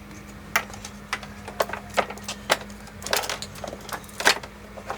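Irregular sharp clicks and knocks of hard plastic wiring connectors being handled and worked, about a dozen in five seconds, the loudest near the end, over a steady low hum.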